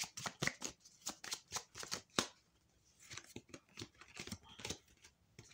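Deck of tarot or oracle cards being shuffled by hand: a quick run of crisp card clicks at about four to five a second, a brief pause a little over two seconds in, then softer, sparser shuffling.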